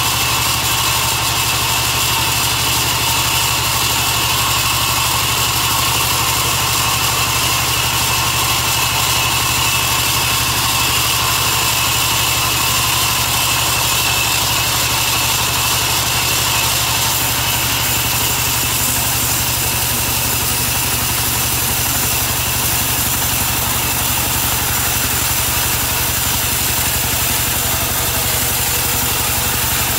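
Large vertical band saw running steadily while its blade rips lengthwise through a timber plank, a constant low hum under a steady high whine.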